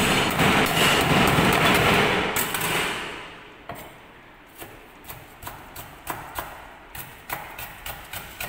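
Knife chopping lemongrass on a wooden chopping board. A fast, loud run of strikes lasts about the first three seconds, then gives way to lighter, separate cuts, two or three a second.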